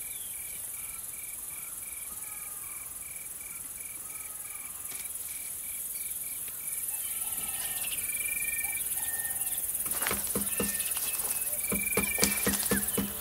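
Insect chorus: a steady high buzz of crickets, with a short chirp repeating about three times a second that stops about halfway. The buzz then grows louder, and sharp knocks and low tones join it in the last few seconds.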